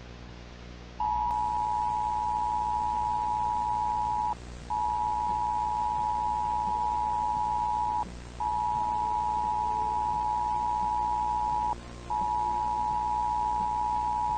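Emergency broadcast attention tone: a single high steady beep sounding in long stretches of about three and a half seconds, split by short gaps, over a low steady hum. It starts about a second in, breaks three times, and is still sounding at the end.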